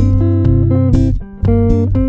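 Hagstrom Ultra Swede electric guitar playing a single-note lead line in D Phrygian over deep sustained bass notes and guitar accompaniment, with sharp hits about once a second.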